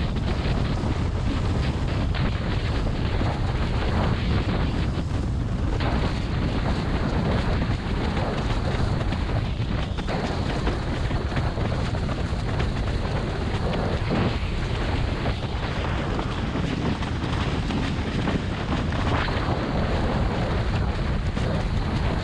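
Steady heavy wind buffeting an action camera's microphone while a slalom windsurf board planes at speed over choppy water, with the rush of water under the board.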